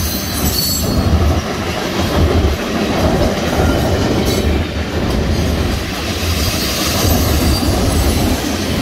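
Loaded freight cars of a mixed manifest train rolling past close by: a steady, loud rumble and rattle of steel wheels on the rail joints.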